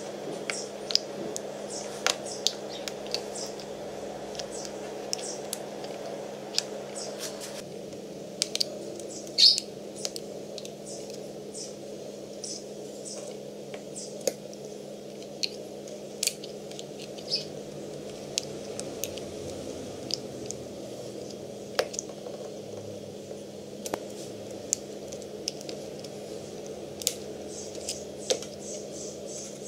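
Irregular light clicks and taps of plastic shotgun shell hulls and plastic wads being handled, set down and pushed into the hulls on a wooden table, with one louder click about nine seconds in and quicker ticking near the end, over a steady low hum.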